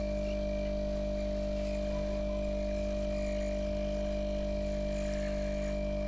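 Hot-air rework station blowing steadily, a constant hum with a few held tones, as it heats a phone board to melt the solder under a BGA chip.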